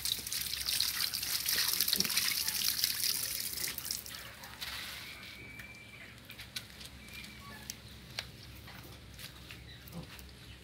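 Tap water running and splashing onto a singed rabbit carcass as hands scrub it, stopping about four to five seconds in. Quieter wet rubbing of the skin follows, with small clicks.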